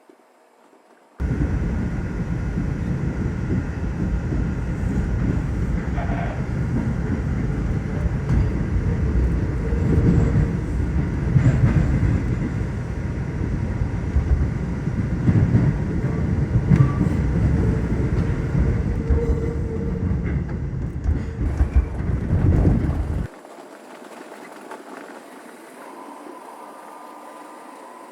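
R142 subway train running at speed, a loud rumble with clattering wheels on the rails. It starts abruptly about a second in and cuts off suddenly near the end, leaving a quieter steady hum with a faint high tone.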